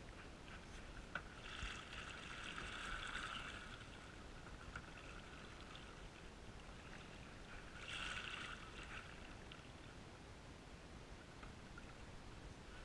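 Canoe paddle strokes swishing through calm river water, muffled by a waterproof action-camera housing. Two longer washes of water noise stand out, one about two seconds in and another about eight seconds in, over a faint steady hiss.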